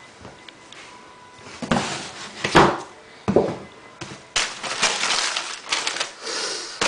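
Tissue paper crinkling inside a cardboard shoebox as it is handled: a few separate rustles, then from about four and a half seconds in a continuous crackle as the paper is folded back from the sneakers.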